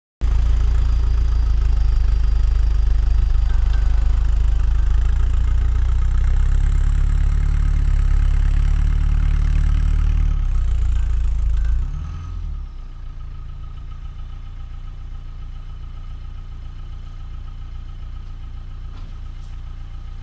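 Land Rover Defender 90's engine running under load while the truck is winched up a rocky chute, then dropping to a quieter steady idle about twelve seconds in.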